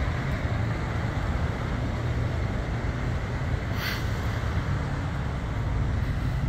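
Steady low rumble of vehicle engines and road traffic, with a short hiss about four seconds in.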